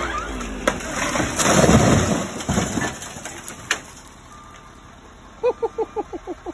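A large half-dead cottonwood hitting the ground. Sharp cracks are followed about a second in by a loud crash as the dead trunk and limbs shatter on impact. The crash fades into a low rumble of settling debris.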